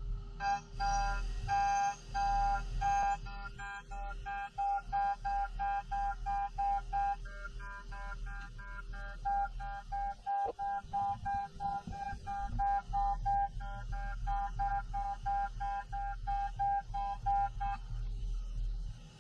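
End mill in a Haas VF-2SS CNC vertical mill cutting metal stock: a high, fixed-pitch whine that pulses on and off about twice a second as the tool goes in and out of the cut, over a steady low machine hum. The whine stops about 18 seconds in, when the cut ends.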